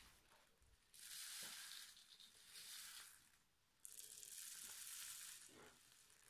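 Small polystyrene foam beads pouring from a tin can onto the top of a portable speaker and spilling off it, a dry rustling hiss in three pours, the last and longest about four seconds in.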